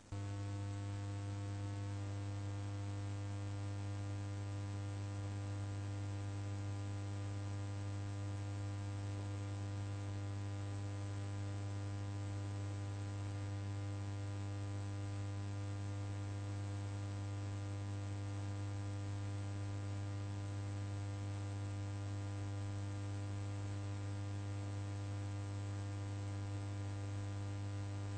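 Steady electrical mains hum with a buzzy stack of overtones, switching on abruptly at the start and holding level throughout.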